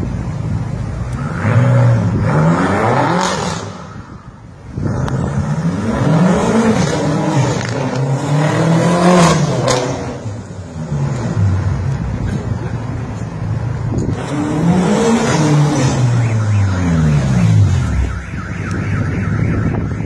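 BMW M5's twin-turbo V8 revved hard and let off again and again, its pitch climbing and falling in several long sweeps, with a short lull about four seconds in.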